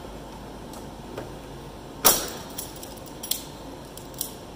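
Metal clicks and clinks of locking pliers being worked on a key switch in a sheet-metal tractor-style console. The loudest is a sharp snap about two seconds in, followed by three lighter clicks.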